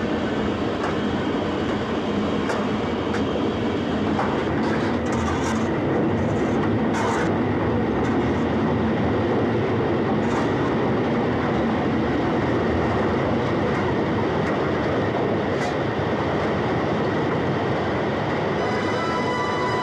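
Steam-hauled express train running at speed: a steady rumble of wheels on rail with a few sharp clicks scattered through it. Music comes in near the end.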